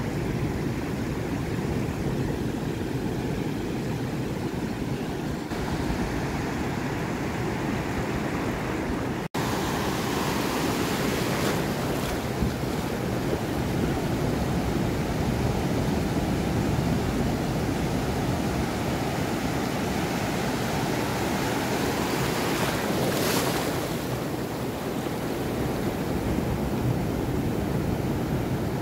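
Ocean surf breaking and washing up the sand in a steady rush, with wind buffeting the microphone. The sound cuts out for an instant about nine seconds in, then the surf comes back brighter and louder, with one stronger wave surging near the end.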